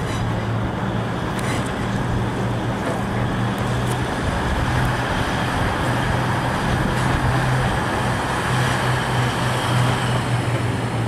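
Union Pearson Express Nippon Sharyo diesel multiple unit rolling past at low speed, its diesel engines giving a steady low drone over a constant hiss of running noise.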